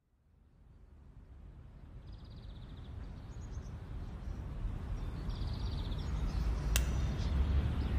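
Low rumbling background ambience fading in from silence and growing steadily louder, with short high chirping trills every second or two and one sharp click about seven seconds in.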